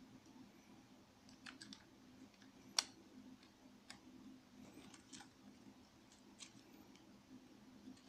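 Faint, scattered clicks and taps from objects being handled, with one sharp click about three seconds in, over a low steady hum.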